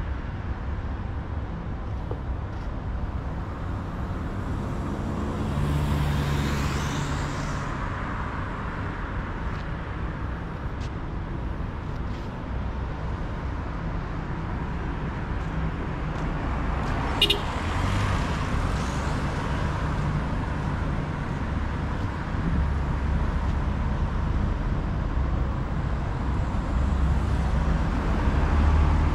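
Street traffic: a steady low rumble with cars passing by, one a few seconds in and another about halfway through, marked by a brief sharp tick. The rumble of traffic grows louder toward the end as a vehicle approaches.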